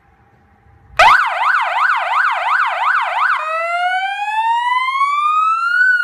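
12V three-tone electronic siren horn cutting in about a second in with a fast yelp, its pitch sweeping up and down about three times a second. It then switches to a slow wail that rises steadily for a couple of seconds and begins to fall near the end.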